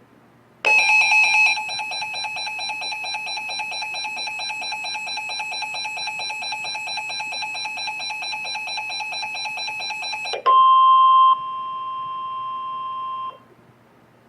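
Emergency Alert System warning tones: a harsh, pulsing electronic alarm tone for about ten seconds, loudest in its first second. It then switches to a steady single tone that lasts about three seconds and cuts off suddenly.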